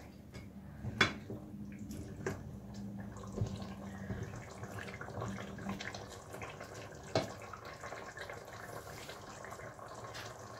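Chicken curry masala sizzling and bubbling in a stainless steel pot as it is stirred and fried down, the water from the yogurt and tomato puree cooking off. A spatula knocks against the pot a few times, sharpest about a second in and again around seven seconds.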